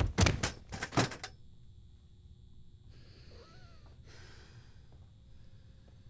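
A quick run of about five heavy thumps in the first second or so, then quiet with faint breath sounds.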